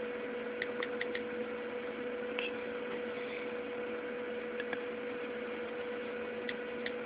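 Steady electrical hum, one constant tone over a background hiss, with a few faint ticks scattered through it.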